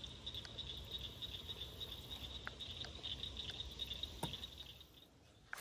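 Faint, steady, high-pitched trilling chorus of small calling animals around a weedy pond, over a low rumble, with a few light clicks; the chorus fades out near the end.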